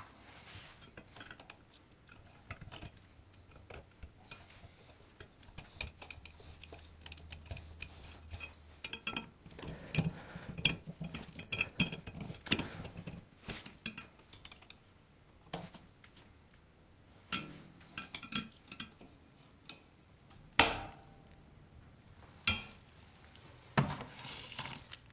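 Small metal parts and tools clinking and tapping on a workbench as they are handled, busier in the second half, with a few sharper knocks near the end.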